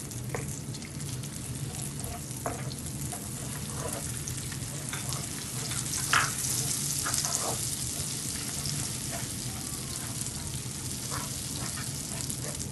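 Butter sizzling and bubbling in hot caramelized sugar in a nonstick pan, stirred with a wooden spoon that scrapes and knocks against the pan now and then. The sizzle grows louder about six seconds in as the mixture foams up.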